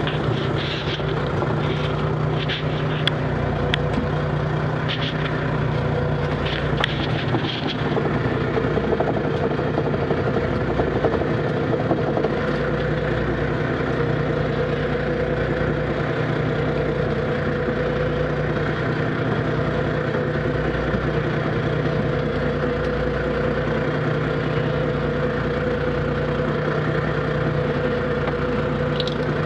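Small fishing boat's engine and hydraulic net hauler running steadily while a trammel net is hauled, a constant hum with a few light clicks in the first eight seconds.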